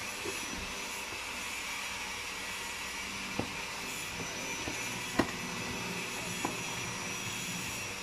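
A few sharp plastic clicks as an electric plug is fitted against an extension socket, the loudest about five seconds in, over a steady background hiss.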